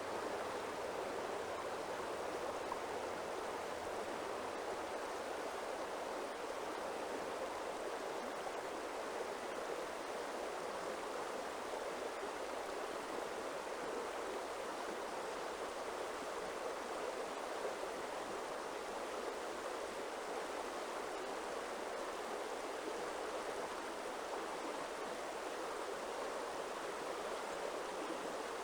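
Flowing stream water, a steady even rush that holds unchanged throughout.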